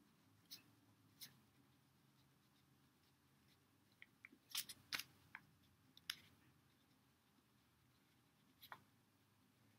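Faint scratches and ticks of a pen writing on paper: scattered short strokes, bunched together in the middle, over near-silent room tone.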